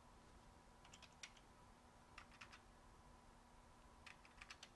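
Faint computer keyboard typing: a few scattered keystrokes in small clusters, over a faint steady hum.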